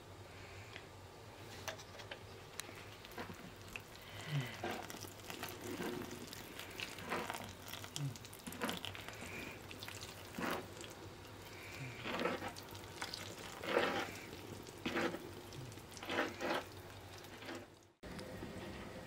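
Kitchen food-preparation sounds: a series of short stirring or mixing strokes about every second, over a steady low background, cut off abruptly near the end.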